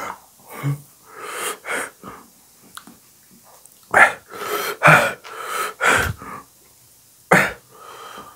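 A person's sharp, wheezy breaths and hissing gasps through the mouth, a string of short bursts strongest about four to six seconds in: the sound of a mouth burning from hot green chilli.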